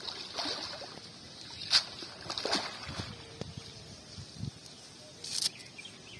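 A wet cast net being hauled up out of pond water and gathered by hand, water splashing and dripping off the mesh, with a few short sharp splashes in the first three seconds and another rush near the end.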